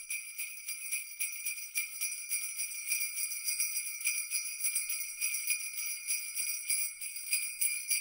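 Jingle bells shaken steadily, a continuous bright jingling with no pause.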